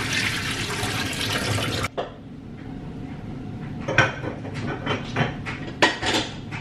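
Water rushing from a kitchen sink faucet, shut off abruptly about two seconds in. A few clinks and knocks of cookware follow.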